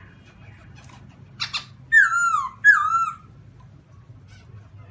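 Black-throated laughingthrush (Garrulax chinensis) singing: a short harsh note about a second and a half in, then two loud, clear whistled notes in quick succession, each sliding down in pitch.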